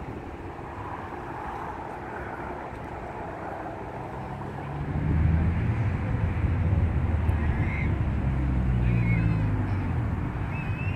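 Road traffic at an intersection: a low engine rumble from vehicles swells about halfway through and stays louder, with a few short, high chirps in the last few seconds.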